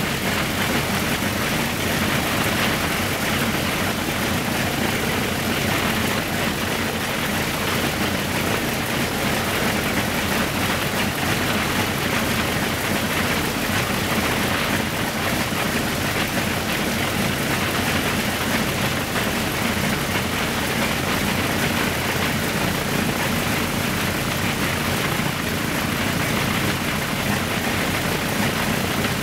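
Ilyushin Il-14's Shvetsov ASh-82T radial piston engine running steadily on the ground during an engine run-up, its propeller turning, with an even drone and no change in pitch.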